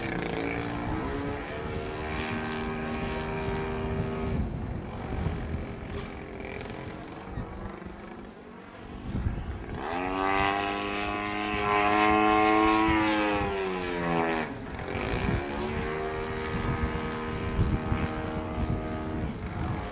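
Radio-controlled model Yak's engine and propeller in flight. The note eases off and quietens about eight seconds in, then rises sharply to its loudest and highest pitch around ten seconds in, and drops back to a steady middle pitch about fifteen seconds in.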